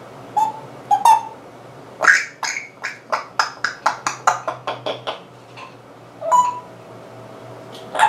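African grey parrot vocalizing: two short squeaky calls, then a louder call followed by a fast run of about fourteen sharp clicks at roughly five a second. Another short call comes about six seconds in.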